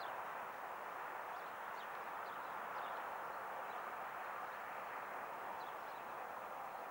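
Distant freight train of covered hood wagons rolling past on the track: a steady, even rolling noise. Brief high bird chirps are scattered over it.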